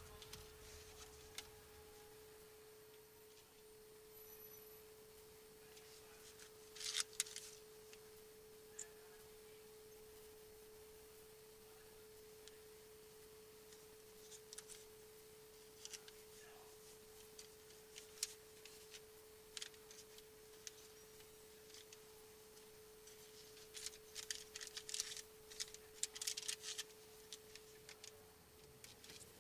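Near silence: a faint, steady single-pitched tone that stops near the end, with scattered soft clicks and rustles.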